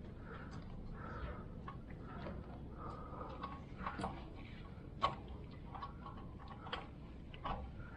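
Scattered, irregular light clicks and ticks of hand tools being worked, over a low steady hum.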